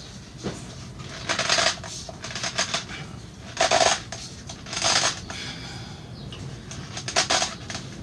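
A cartridge oil filter being forced by hand onto its housing cap with a twisting motion: several short scraping, rubbing bursts as the filter is worked down until it seats fully.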